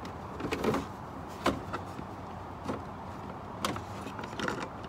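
Scattered plastic clicks and knocks as a funnel is seated in an engine's oil filler neck and the cap is twisted off a plastic jug of motor oil, over a steady low hum.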